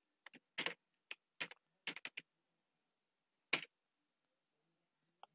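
Typing on a computer keyboard: a quick run of about nine key clicks over the first two seconds, then one louder click about three and a half seconds in.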